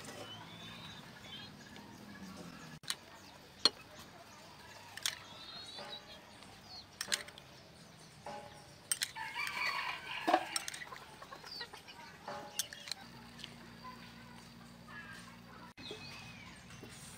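Chickens clucking and a rooster crowing, with a louder stretch of about two seconds mid-way. A few sharp clicks are scattered through.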